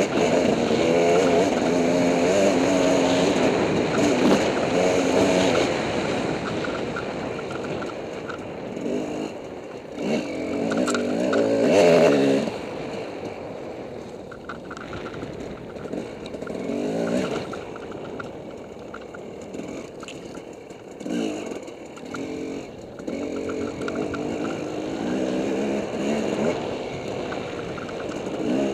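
Dirt bike engine being ridden hard, its pitch rising and falling with the throttle. It is loudest at the start, eases off about six seconds in, and surges again in bursts, most strongly about twelve seconds in.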